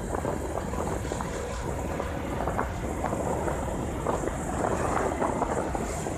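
Bajaj Discover 150F motorcycle's single-cylinder engine running steadily while under way, with wind buffeting the phone's microphone.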